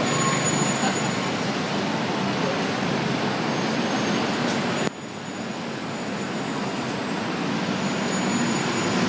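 Road traffic noise: a steady wash of passing vehicles, dropping suddenly about five seconds in and then building again.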